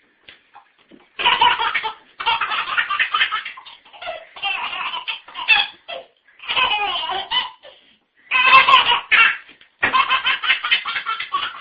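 A young boy laughing hard in several long fits of rapid, pulsing belly laughter, with brief breaths between them.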